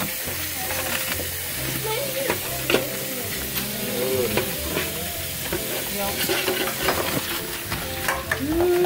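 Tap water running and splashing into a stainless-steel sink full of live blue crabs, with scattered sharp clicks and scrapes of crab shells and claws against each other and the steel.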